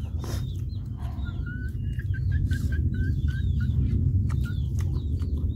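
Birds chirping: a run of short repeated notes through the middle, with small high chirps throughout, over a steady low rumble. Scattered sharp clicks and smacks from people eating with their hands.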